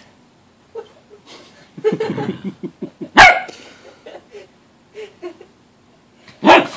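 Cockapoo barking twice, a short sharp bark about three seconds in and another near the end, at a toy it can't reach inside a laundry basket. Just before the first bark comes about a second of low, rough growly noise.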